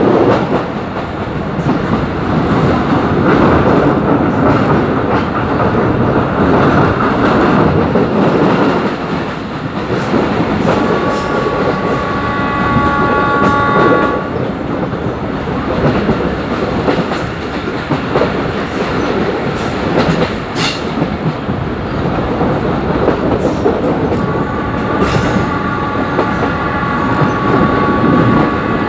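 Passenger train running at speed, heard from an open coach window: a steady rumble and rattle of wheels on the rails with wind. The locomotive's horn sounds twice as a steady chord, for about three seconds roughly eleven seconds in and again for several seconds near the end.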